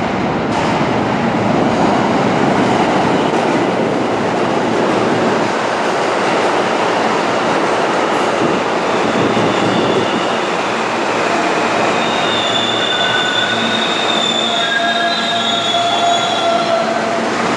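New York City subway trains running through an underground station: a loud, continuous rumble, joined from about halfway in by several high, steady squealing tones as a train pulls into the platform.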